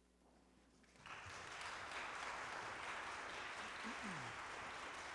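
Audience applauding, breaking out about a second in after a moment of near silence and then holding steady.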